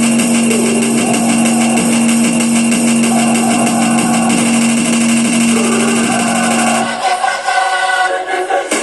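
Electronic music played through a Tribit StormBox Mini Bluetooth speaker: a steady low drone under a dense, wavering synth texture, which drops away about seven seconds in to a sparser passage of held tones.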